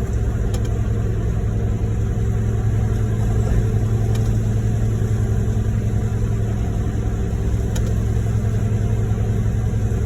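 Heavy diesel truck engines running steadily under load as a concrete mixer truck discharges into a concrete pump truck, with a constant low drone and a few faint ticks.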